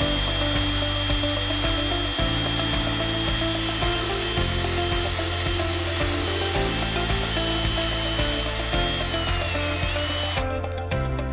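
Power drill with a step bit boring through a PVC pipe cap, the motor running at a steady whine as the bit cuts the plastic. Its pitch sags slightly and it stops shortly before the end.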